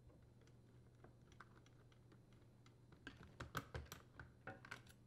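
Faint, scattered clicks and light taps of a dishwasher detergent dispenser's metal mounting bracket and its screws being handled and taken off. A quick run of sharper clicks starts about three seconds in.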